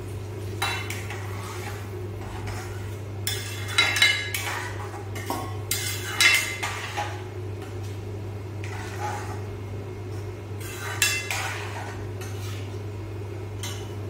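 Steel ladle scraping and clinking against a stainless steel kadai while a watery tomato-onion masala is stirred: a handful of sharp clinks and scrapes over a steady low hum.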